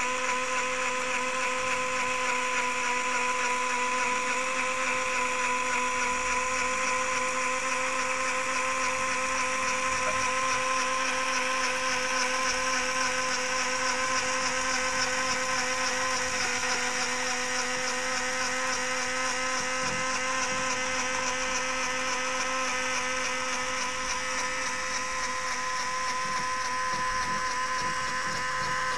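LEGO Power Functions electric motor running continuously with a steady whine, driving a LEGO Technic chain-and-sprocket lift through plastic gears.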